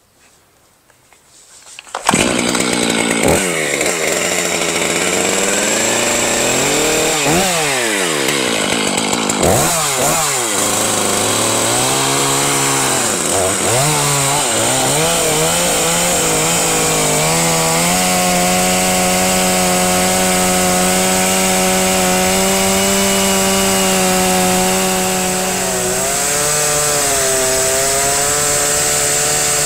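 Two-stroke chainsaw starting up about two seconds in and revving up and down several times, then held at a steady high speed while cutting the end off a big pine log to remove embedded spikes; the engine note dips briefly near the end.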